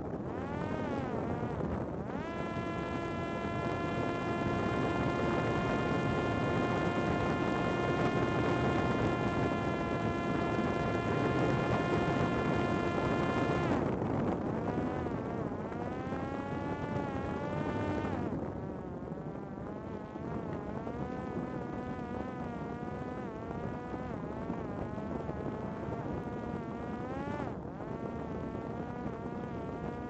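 Parrot Disco fixed-wing drone's electric motor and rear pusher propeller whining in flight. The pitch jumps up about two seconds in and holds steady until about halfway, then drops and keeps rising and falling with the throttle.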